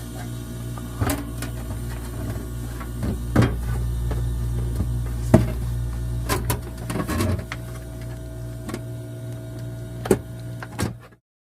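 Walk-in freezer refrigeration equipment running with a steady electrical hum, with scattered clicks and knocks from handling; the deepest part of the hum drops away about nine seconds in.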